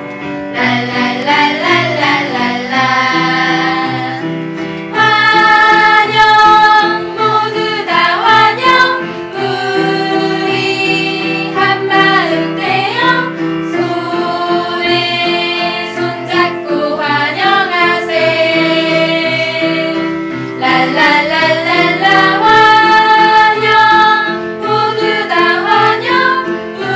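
A group of women, kindergarten teachers, singing a welcome song together to young children.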